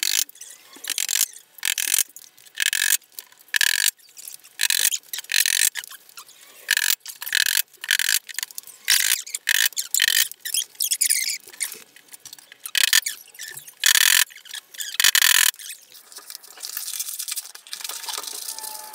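Hammer driving small nails into a furniture panel: a long, irregular run of sharp metallic strikes, some with a short ring. The strikes stop about sixteen seconds in and give way to a softer scratchy noise.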